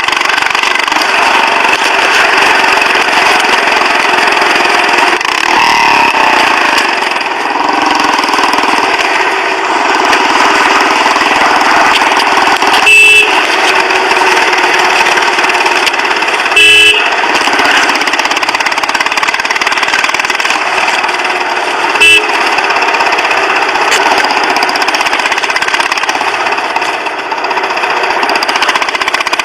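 Steady, loud motor or road noise with three short vehicle horn beeps: one about halfway through, another a few seconds later, and a briefer one after that.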